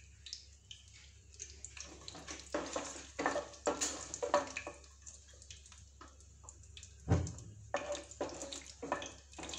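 Hot oil sizzling and crackling around whole spices in a nonstick pan while a wooden spatula stirs and scrapes across the pan, with one low knock about seven seconds in.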